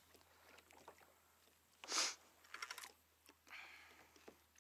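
Soft clicking from the fishing rod and reel as a fish is played, a quick run of ticks about two and a half seconds in, with a short rushing puff just before it and another softer one near the end.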